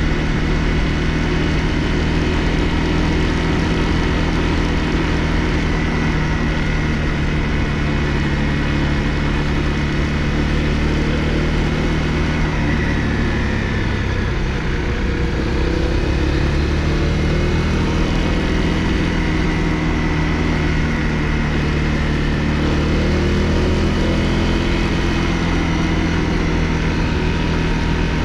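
Honda CRF250L's single-cylinder four-stroke engine running steadily under way. About halfway through, the engine note drops as the bike slows, then climbs again as it picks up speed.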